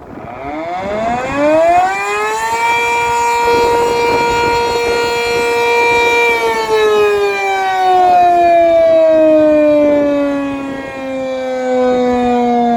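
Sentry 3V8-H electromechanical siren starting up: its pitch rises for about two seconds, holds steady, then from about six seconds in slowly winds down.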